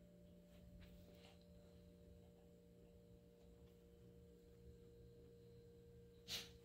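Near silence: faint room tone with a steady low hum, and one brief click near the end.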